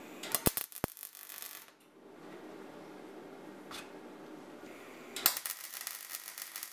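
Gas-shielded MIG welder laying two short tack welds on sheet steel. The arc crackles for about a second and a half near the start, then again from about five seconds in, with a low steady hum between.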